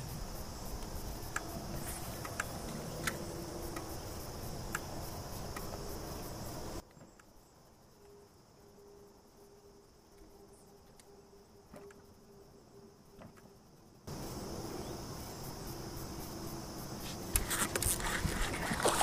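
Steady high-pitched insect chorus with a few faint clicks. It cuts out to near silence for several seconds in the middle, then returns. Near the end there is louder noise as a fishing rod is cast.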